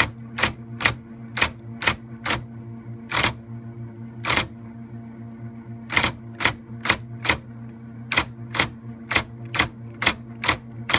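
IBM Correcting Selectric II electric typewriter being typed on: sharp typeball strikes about two a second, with a pause of a second or so near the middle, over the steady hum of its running motor.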